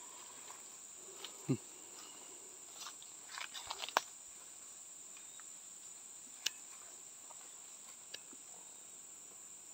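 Faint, steady, high-pitched insect drone from the surrounding bamboo forest. A few soft clicks and rustles of handling break in, the sharpest a click about four seconds in.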